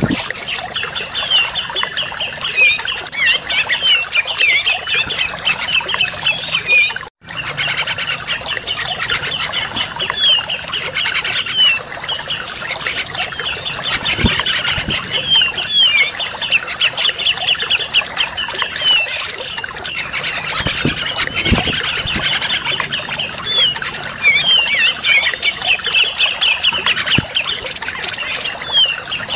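Looped bird-lure recording of grey-cheeked bulbul (cucak jenggot) calls: a dense, rapid run of harsh chattering and chirping notes. The sound cuts out for an instant a little after seven seconds in.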